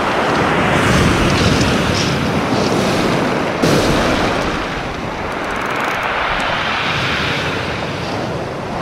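Surf breaking and washing over a pebble beach in slow surges, with wind rumbling on the microphone. A single sharp knock about three and a half seconds in.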